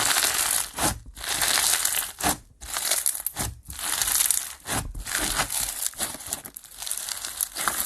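Slime being squeezed and pressed by hand, a dense crackling in repeated strokes of about a second with brief pauses between them.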